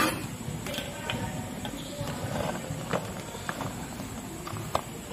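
A knife and sliced red onions knocking and tapping on a plastic chopping board. A sharp knock comes right at the start, then scattered single knocks at irregular intervals.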